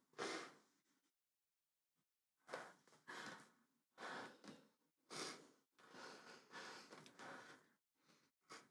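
A woman sobbing softly: a run of shaky, breathy sobs and sighs, separated by short pauses.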